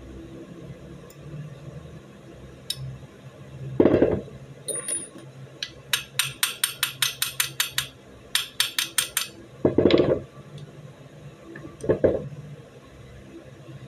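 Small steel Beretta 92FS pistol parts being worked by hand. Two quick runs of light metallic clicks, about six a second, come in the middle, and three dull knocks fall before and after them.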